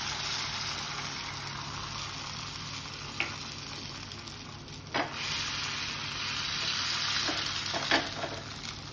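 Egg frying in hot oil on a flat tawa griddle: a steady sizzle broken by a few sharp pops, the loudest near the end.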